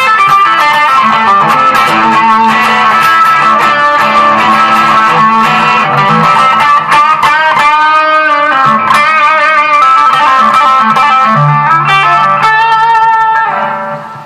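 Electric guitar played solo, a run of single notes and chords, with several held notes wavering in vibrato around the middle and again near the end. The playing dies away just before the end.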